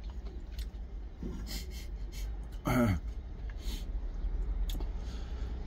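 A man eating, with short sniffs and breaths through the nose and one brief falling "mmm" of relish a little under three seconds in, over a low steady hum.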